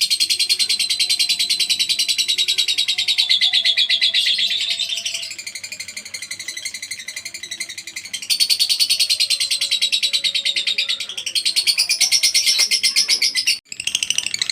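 Lovebird ngekek: a long, fast chattering trill of rapid high-pitched pulses. It eases off about five seconds in, comes back strongly around eight seconds, and breaks off briefly near the end before starting again.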